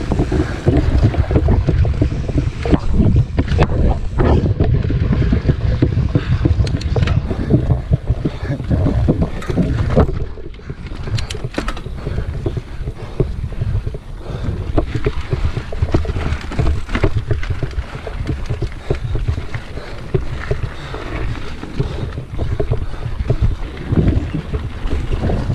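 Wind buffeting the camera microphone as a mountain bike rides a dirt trail, with tyre noise and frequent short rattles and knocks from the bike over bumps. It eases briefly about ten seconds in.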